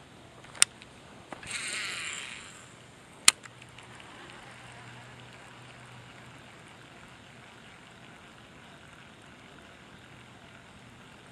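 A cast with a baitcasting reel: a sharp click, a rushing whir of about a second, and another sharp click, followed by quiet steady winding.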